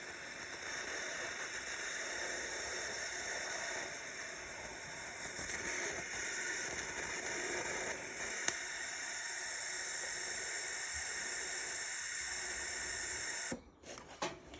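Welding arc hissing and sizzling steadily as new studs are welded onto snapped exhaust-manifold studs, stopping abruptly near the end.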